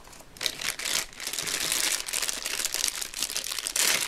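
Clear plastic packaging crinkling as it is handled, a run of quick rustles and crackles that grows loudest just before the end.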